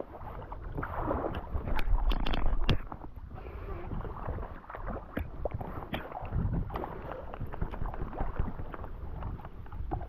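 Water splashing and sloshing as a hooked brown trout is played in close, with irregular clicks and wind rumbling on the microphone; the splashing is loudest for about a second near the start.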